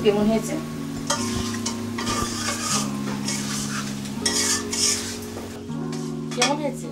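A metal spatula scraping and stirring sizzling food in a karahi, in irregular strokes, over soft, sustained background music.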